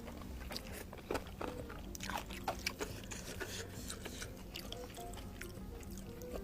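Close-up chewing of instant noodles with crunchy fried anchovies and potato: many small, scattered crunches and mouth clicks. Faint background music underneath.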